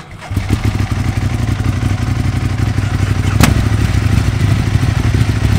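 A Vyrus motorcycle's Ducati V-twin engine fires about a third of a second in and settles into a loud idle with a rapid, uneven beat. A single sharp clack comes about three and a half seconds in.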